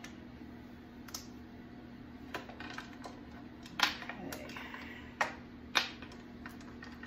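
Pressure canner lid clamps being unscrewed by hand: several separate sharp metal clicks and knocks, the loudest near the middle, over a steady low hum from a food dehydrator running in the background.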